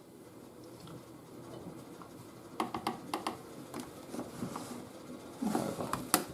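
Faint clicks, taps and scraping of a washing machine's detergent drawer and controls being handled: a quick cluster of clicks about two and a half seconds in, more near the end with one sharper knock.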